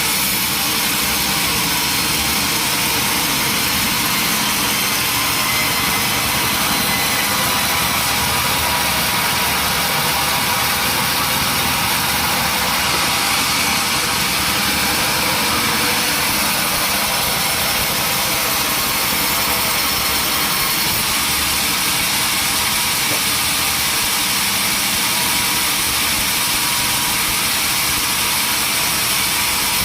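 Sawmill machinery running with a loud, steady, even noise that does not change.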